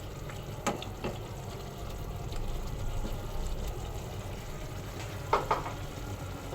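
Shrimp kosha cooking in a pan on the stove, a steady sizzle and simmer, with a few light knocks of a utensil against the pan.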